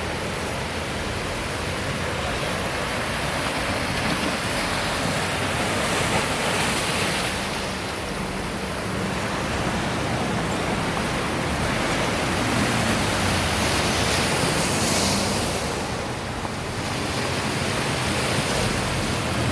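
Ocean surf washing in, a steady rushing noise that swells and eases every several seconds.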